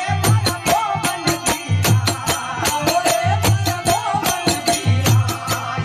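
Rajasthani folk bhajan music: a harmonium melody over fast, rattling hand percussion, with a deep drum beat about every second and a half.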